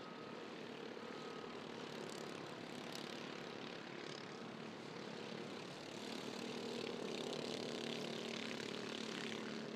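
Small 265cc Subaru single-cylinder engines of several JR 2 off-road race karts buzzing at a steady pitch as they run in a pack. The sound gets a little louder about six seconds in.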